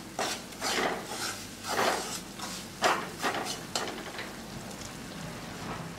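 Flat wooden spatula scraping and stirring semolina roasting in ghee in a nonstick kadai: about six short scraping strokes in the first four seconds, then quieter. The rava is being roasted on low heat until it turns brown.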